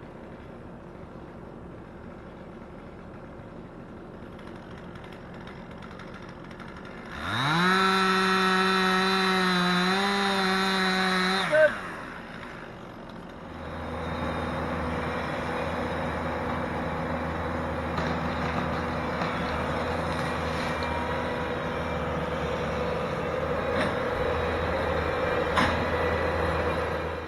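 Chainsaw revved to a high steady whine for about four seconds, then dropping back, over the low drone of a diesel machine. After that a heavier engine runs steadily and noisily under load.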